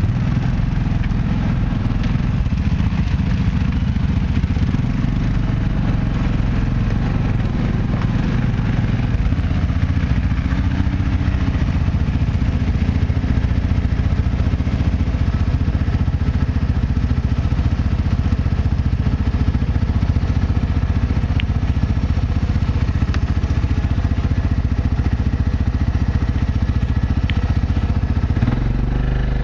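ATV (quad bike) engine running steadily at low, even revs, heard close up as a constant low drone, with now and then a faint click or rattle from the machine on the rough track.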